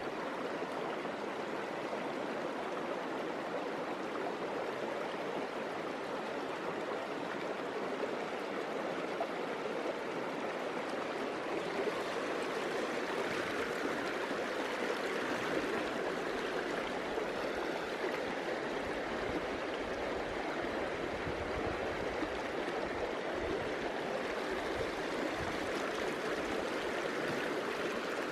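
Small rocky stream rushing and gurgling over stones, a steady flow of water that grows a little louder in the second half.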